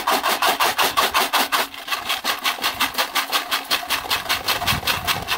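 Golden Retriever hand-held drywasher being shaken hard, gravel and sand rattling and scraping inside its sheet-metal box. A fast, even rhythm of about six or seven strokes a second.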